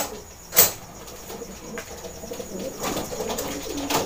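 Racing pigeons cooing, the low rolling coos building up in the last second or so. Two sharp knocks near the start come from the metal pigeon crate being handled as birds are loaded.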